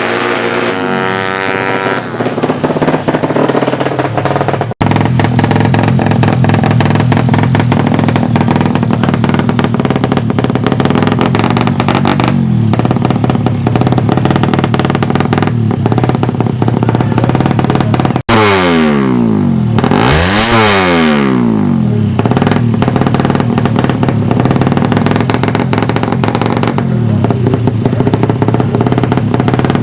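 Suzuki Satria FU 150 dragbike engines, four-stroke singles, revving hard at high rpm. A little past the middle the pitch drops and then climbs again. The sound breaks off for an instant twice.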